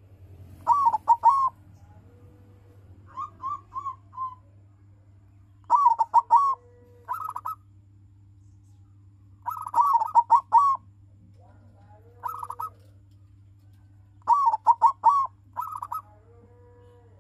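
Silver-coloured zebra dove (perkutut) singing its cooing song: four loud phrases of quick, stuttering coos, each followed by a shorter, softer run of coos and a brief low note.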